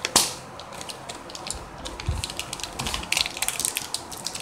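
Irregular small clicks and crackles of something being handled at close range, with a sharp click just after the start, a couple of low bumps about two and three seconds in, and denser crackling after about three seconds.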